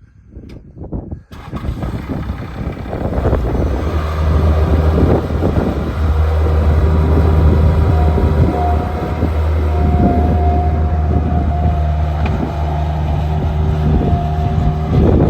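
Bobcat 763 F-Series skid steer's diesel engine. It comes in about a second in, builds over a few seconds, then runs loud and steady with a low hum.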